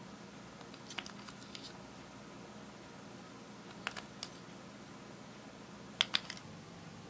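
Sharp little clicks and taps of a plastic glitter lip-gloss tube and its cap being handled over glass trays, in three small clusters: about a second in, near four seconds, and a louder pair at about six seconds.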